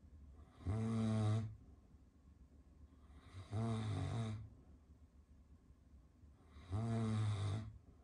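Caucasian Shepherd dog snoring in its sleep: three long snores about three seconds apart, with quiet breathing between.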